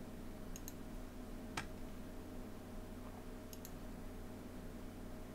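A few computer mouse clicks: two quick pairs and a single click in between, over a steady low hum.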